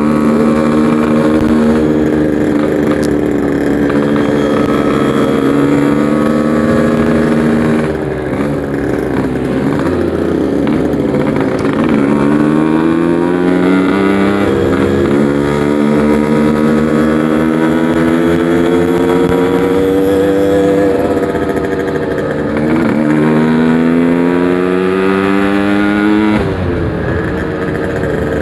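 Yamaha RX-King's 135cc two-stroke single-cylinder engine running through a packing power exhaust while the bike is ridden. The engine note climbs steadily under throttle, drops back briefly three times as the revs ease or it shifts, then climbs again.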